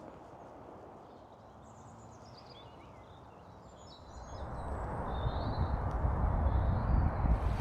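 Birds chirping and calling faintly in wet weather, with a low rushing noise swelling up from about four seconds in and becoming the loudest sound.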